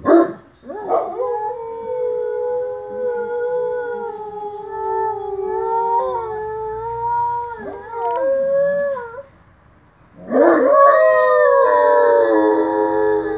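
A Great Dane and a cocker spaniel howling at the sound of an ice cream truck, in long, wavering howls. The howling breaks off for about a second near the end, then starts again louder, with two voices howling at once.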